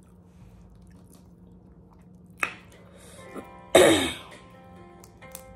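A woman coughs to clear her throat, one harsh cough about two-thirds of the way in that is the loudest sound, with a shorter sharp sound a little more than a second before it. Music plays faintly in the background.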